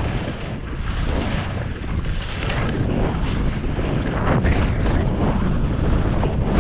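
Wind rushing over a GoPro's microphone during a fast downhill run, with the hiss and scrape of edges over chopped-up packed snow, swelling and easing with the turns.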